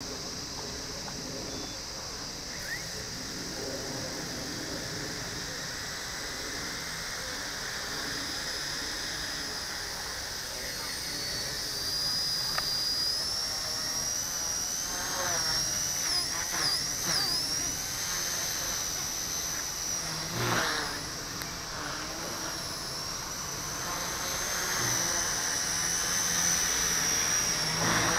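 Blade Nano CP X micro RC helicopter whining as its electric motors spin up, the high-pitched whine rising in pitch as it lifts off, then wavering up and down as it is flown.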